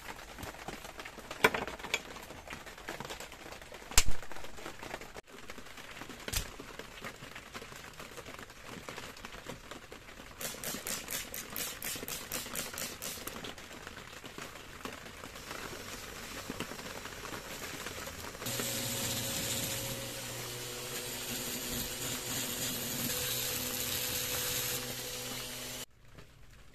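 Bench handling noises: a few sharp knocks and a short run of rapid, even clicking. About two-thirds of the way in, a small electric motor starts and runs steadily with a low hum, then cuts off abruptly near the end.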